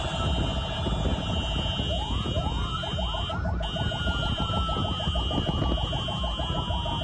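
Several electronic sirens from a government vehicle convoy sounding at once. A fast warbling siren gives way about two seconds in to quick, repeated rising whoops, several a second, under a slowly falling tone. Over all of it a steady high tone runs, with one brief break midway, above a low rumble.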